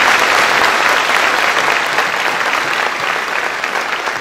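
Large audience applauding, the clapping slowly dying down toward the end.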